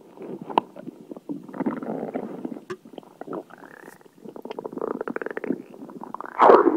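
Soda sloshing and bubbling in the stomach just after being chugged: irregular gurgling with quick runs of clicks, growing louder near the end.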